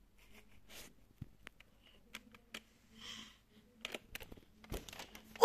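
Quiet room with faint scattered clicks, taps and rustles of a baby moving about on a play mat and of a phone being handled, with a soft breath about three seconds in.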